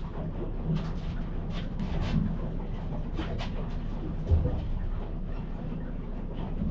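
Boat motor running steadily with a low rumble, with scattered knocks and clicks, the loudest about four seconds in.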